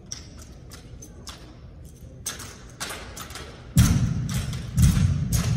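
Armed drill team handling drill rifles: a run of sharp slaps and clicks from hands striking the rifles, then from about four seconds in heavy thumps that come about once a second.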